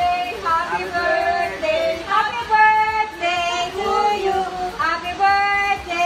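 A high voice singing a melody of held notes, with short breaks between phrases.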